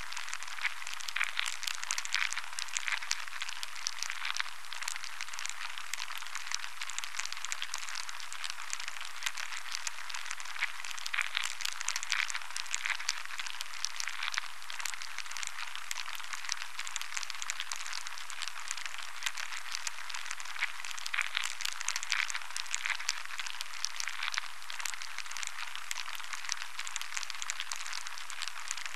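Steady dense crackling over a hiss, like countless tiny clicks. Clusters of louder crackles come back about every ten seconds.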